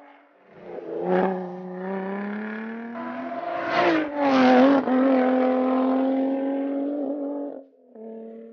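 Lotus Exige Sport 380's 3.5-litre supercharged V6 engine and exhaust running hard on track, its pitch climbing steadily through the first few seconds. A sharp crack comes about a second in, and the loudest, harshest stretch comes around four seconds in, before the note holds steady and drops away sharply near the end.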